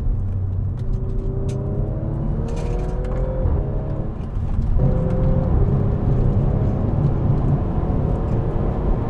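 2018 Audi RS5's twin-turbo V6 pulling hard through the gears, with its Remus exhaust, over steady road and tyre rumble. The engine note climbs and drops back at each of several quick upshifts, then holds one long, slowly rising pull.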